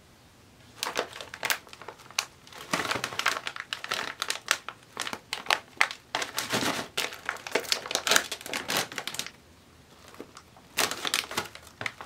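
Doritos Dinamita Flamin' Hot chip bag crinkling and crackling in the hands as it is turned over and opened. It makes a long string of sharp crackles, then stops for about a second and a half and crinkles again near the end.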